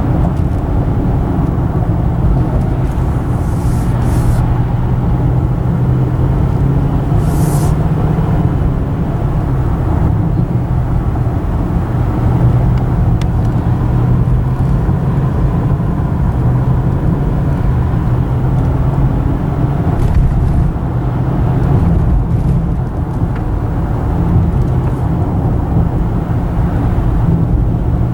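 Steady in-cabin road noise of a car driving along a highway: low engine and tyre rumble, with a couple of brief passing hisses.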